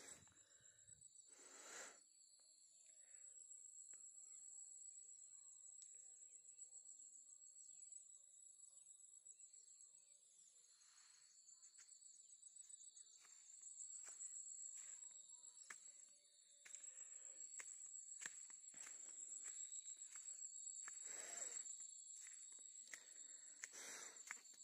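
A faint, steady, high-pitched chorus of evening insects, with a fast pulsing trill. From about halfway on, soft irregular footstep thumps come through as the recordist walks.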